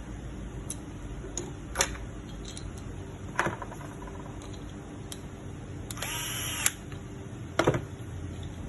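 Small hard magazine parts being handled: a few sharp clicks and knocks, and a short scrape about six seconds in, over a steady low hum.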